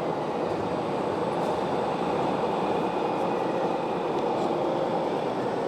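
Steady mechanical running noise of 1/14-scale RC construction models, a continuous rumbling hum without breaks.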